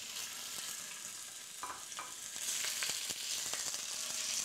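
Roe-deer rib bones sizzling as they brown in oil in a cast-iron casserole, stirred with a wooden spatula that knocks lightly against the pot a few times around the middle.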